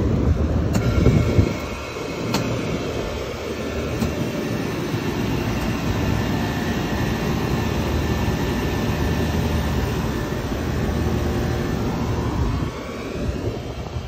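Trane IntelliPak rooftop HVAC unit running in service test mode, its compressors and condenser fans just started: a steady machine drone with a few sharp clicks in the first four seconds.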